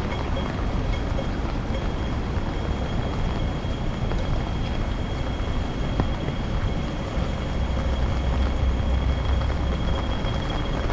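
Steady city street noise in typhoon wind and rain, with a low rumble that grows louder about eight seconds in and a faint steady high whine running through it.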